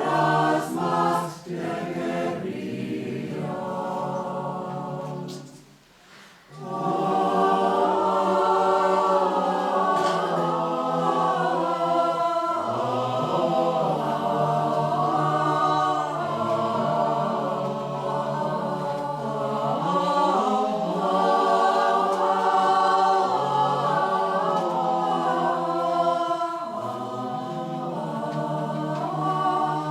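A choir singing a song in Spanish, many voices together. They drop away briefly about six seconds in, then come back and carry on.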